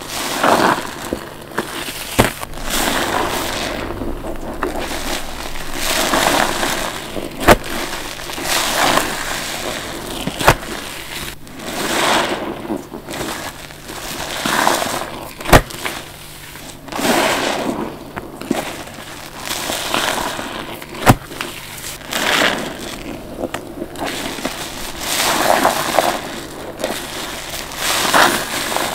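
Wet sponges squeezed by hand over and over, each squeeze a swell of squelching, crackling noise that comes every two to three seconds. A few sharp, single clicks fall between the squeezes.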